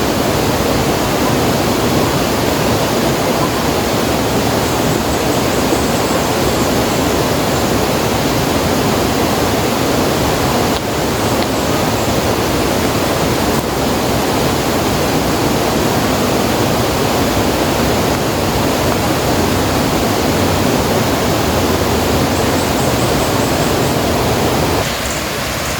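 Loud, steady rushing noise with no distinct events, easing off slightly about a second before the end.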